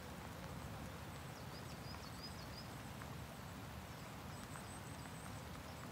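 Steady rain falling on open water and leafy vegetation, an even pattering hiss, with a few faint high chirps now and then.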